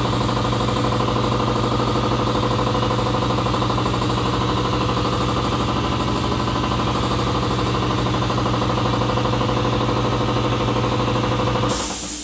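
Air compressor running steadily with an even mechanical hum. It stops abruptly near the end, replaced by a short hiss.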